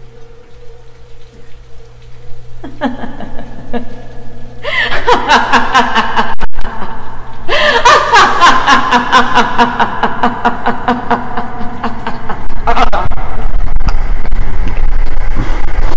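A person's drawn-out, theatrical villain's laugh that starts about three seconds in and grows louder in pulses. Near the end a deep rumble swells up underneath it.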